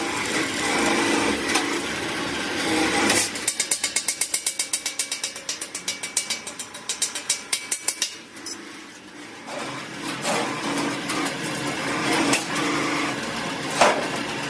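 Arc welding crackling and hissing as a steel dished end is welded onto an air-compressor tank shell. About three seconds in, rapid metal-on-metal strikes, about five a second, as the weld seam is chipped clean, then steady welding crackle again for the last few seconds.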